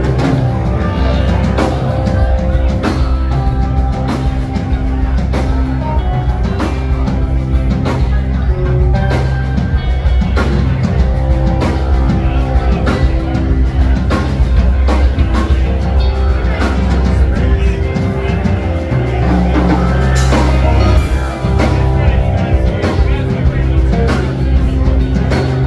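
Live jam band playing rock at full volume: drum kit and electric guitars, recorded from within the audience.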